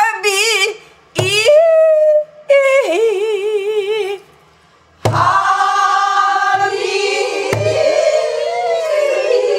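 Pansori singing: a woman sings short phrases with deep, wide vibrato, with low strokes on a buk barrel drum marking the beat. About five seconds in, several voices sing a longer phrase together.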